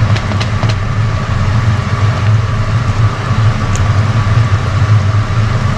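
Steady low hum with an even hiss over it, the kitchen's running background under a simmering pan of pasta sauce. A few light clicks of metal tongs against the frying pan come just after the start.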